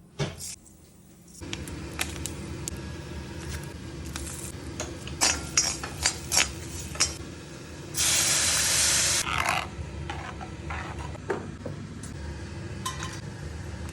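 Cooking in a pan on the stove: a spoon knocking and scraping against the pan, several sharp clinks in quick succession mid-way, and about eight seconds in a loud burst of sizzling that lasts about a second and a half.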